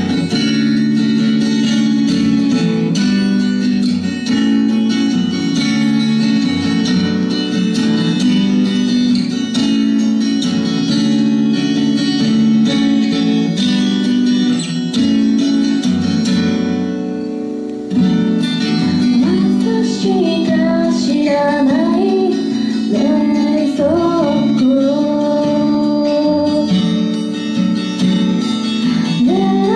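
Steel-string acoustic guitar strummed with a capo, playing a chord pattern, easing off briefly just before the middle. A woman's voice then starts singing a melody over the guitar.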